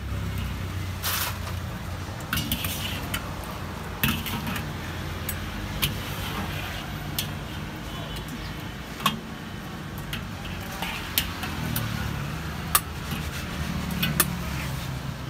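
Steel ladle knocking and scraping against a wire strainer and steel wok while pressing sweet potato balls frying in oil, with sharp metal clinks every second or two. A low steady rumble of street traffic runs underneath.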